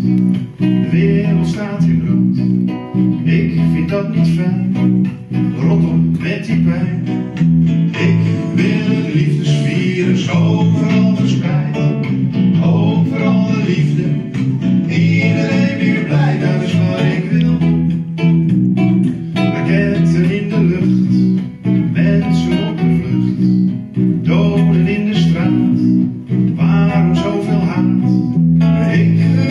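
Live acoustic band music: two acoustic guitars strummed over an electric bass, with singing.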